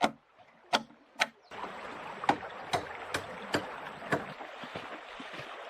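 Steady rush of stream water with a series of sharp knocks of hammering, about two or three a second. Two lone knocks come first, and the water sound comes in about a second and a half in.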